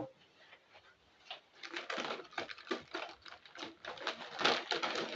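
Soda bottles being handled and set into a fridge, a quick irregular run of light clinks and knocks.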